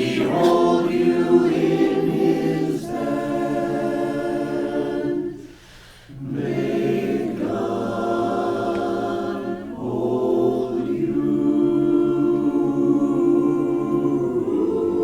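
A cappella chorus singing long held chords, with a short break about five and a half seconds in before the chords resume.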